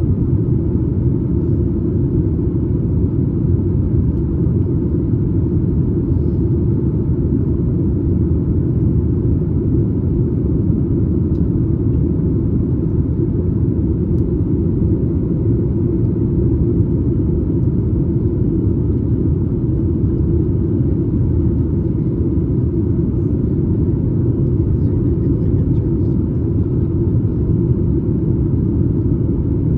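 Steady low rumble of engine and airflow noise inside the cabin of a Boeing 737 MAX 8 in flight, with its CFM LEAP-1B engines running at a constant setting.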